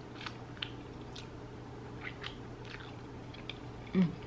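A person chewing flaky baklava with her mouth closed: faint, scattered little crackles of the pastry, with a brief hummed voice sound near the end.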